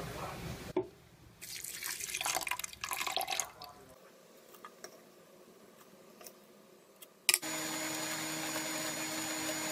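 Liquid splashing into a blender jar over chopped chillies. About seven seconds in, the countertop blender switches on with a click and runs steadily on high, a constant whirring hum.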